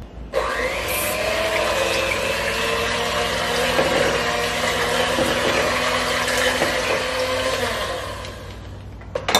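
An old electric hand mixer running steadily, its beaters churning a thin, milky pudding mixture in a glass bowl; it starts just after the beginning and winds down near the end. The mixture is still too thin to thicken.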